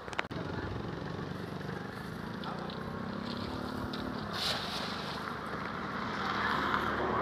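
A cast net lands on the water with a short splash about four and a half seconds in, over a steady low engine hum.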